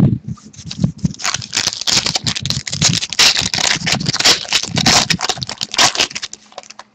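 Trading cards and their pack being handled: a dense run of rustling and crackling with many small clicks, fading out about six seconds in.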